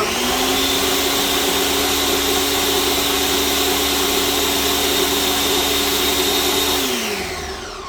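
Countertop blender puréeing peppers and tomatoes into a sauce: the motor comes up to speed right at the start, runs steadily, and is switched off about seven seconds in, its hum falling as it winds down.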